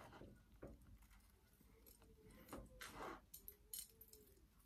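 Near silence with a few faint clicks and short rustles from handling bonsai wire and the branches of a young yew tree.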